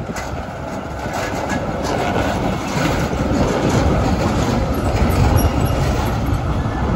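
B2-class articulated electric tram passing close, its steel wheels rumbling on the rails with some clicking and clacking. The rumble grows steadily louder as the tram nears.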